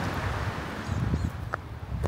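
Wind rumbling on the microphone outdoors, with two faint high bird chirps about a second in and a few light taps.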